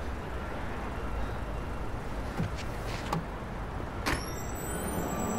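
Steady low rumble of city traffic, with a few sharp clicks, and faint high thin tones coming in about four seconds in.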